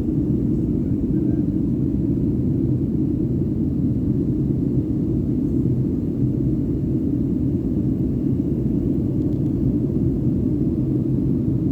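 Steady low rumble of cabin noise inside a Boeing 757-200 in flight: engine noise from its Rolls-Royce RB211 engines and airflow over the fuselage, with a faint steady hum underneath.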